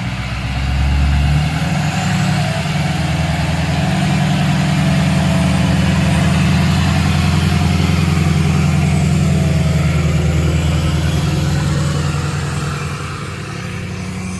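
An engine running steadily. It picks up about a second in and eases off near the end.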